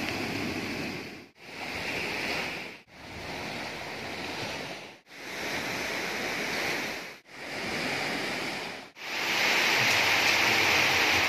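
Outdoor ambience from a string of short clips, each cut off abruptly: a steady rushing noise of surf and wind, with waves washing onto a beach. The last clip, starting about nine seconds in, is the loudest.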